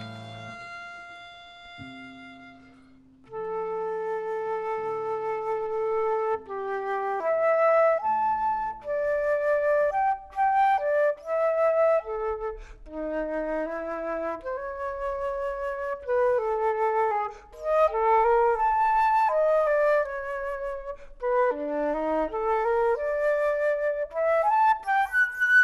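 A held ensemble chord dies away over the first three seconds. Then a concert flute enters with a slow solo melody of sustained notes moving step by step, over quieter lower notes.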